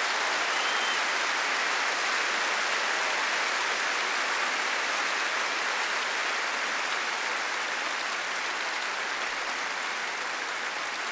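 A large concert audience applauding steadily, the clapping slowly fading toward the end.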